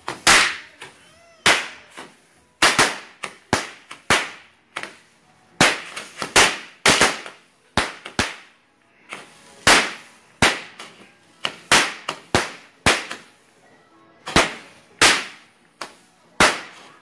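TNT Color Pearl 96-shot firework cake firing shot after shot, an irregular run of sharp bangs about one or two a second, each fading quickly.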